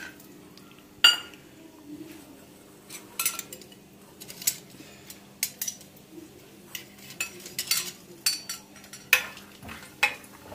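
Metal spoon stirring peanuts in oil in a metal kadai, clinking and scraping against the pan in a long string of sharp clicks. There is one loud clank about a second in.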